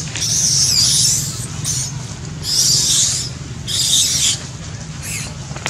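Baby long-tailed macaque squealing: about five short, high-pitched screams in a row, some under a second long.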